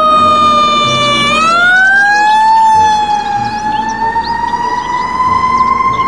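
Fire truck siren wailing as a ladder truck drives along. It is loud and steady-pitched at first, then dips slightly and glides up about a second in, and keeps rising slowly after that, with a low rumble underneath.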